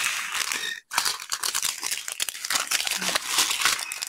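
Small plastic zip-top bags of diamond painting drills crinkling and rustling as they are handled, with a brief break just before a second in.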